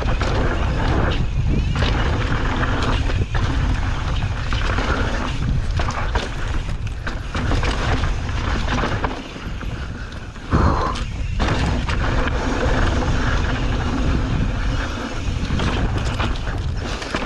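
Wind buffeting the microphone and the rumble and rattle of a mountain bike riding over a rough dirt trail, with repeated thumps from bumps. There is a short lull about nine seconds in, ending in a sharp jolt.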